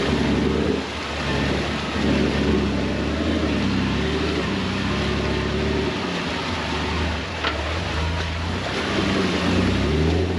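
Jeep TJ engine pulling the Jeep through a deep water crossing, with water rushing and sloshing around the body. The engine note rises and falls with the throttle.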